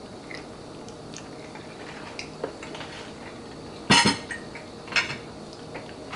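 A white plate with a fork on it set down on a kitchen counter: a loud clatter of crockery and metal about four seconds in and a second, smaller clink a second later. Quiet scattered clicks of cutlery come before.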